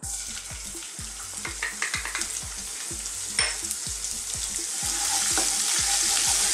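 Minced garlic sizzling as it hits hot cooking oil in a nonstick wok, the frying growing louder as the oil takes it. A wooden spoon stirs it near the end.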